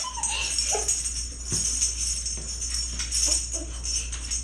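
Light background music with a steady high jingling, like shaken tambourine and sleigh bells.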